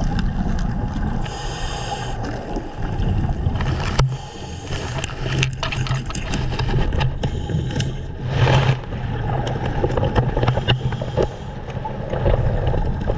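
Underwater ambience heard through a GoPro housing: a steady muffled rumble with scattered clicks and scrapes as the diver moves through kelp. A short rushing burst comes a little past the middle.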